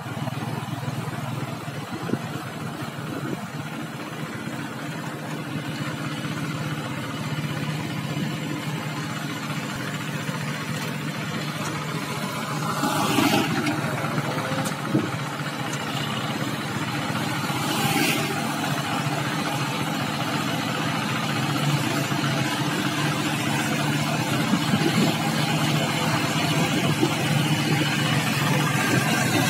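Steady engine noise and road noise from the filming vehicle driving close behind a two-wheel hand tractor pulling a wooden trailer. Two brief louder swishes come about 13 and 18 seconds in.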